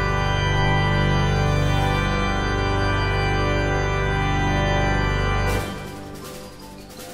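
Organ music playing loud sustained chords, which break off about five and a half seconds in, leaving a much quieter stretch.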